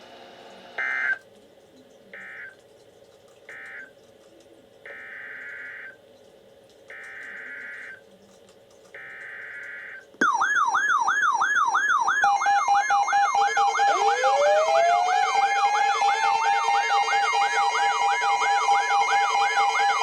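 Bursts of screeching EAS/SAME digital data tones from a NOAA weather radio broadcast: three short bursts, then three longer ones about a second each. About ten seconds in, a bank of weather alert radios all sound their alarms at once, loud and layered. Fast warbling siren tones mix with steady beeping tones, and one tone rises in pitch a few seconds later. Together they signal a severe thunderstorm warning.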